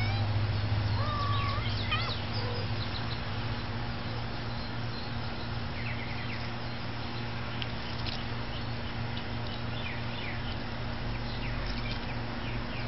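A cat meows a couple of times near the start. Then short high bird chirps come at scattered moments over a steady low hum.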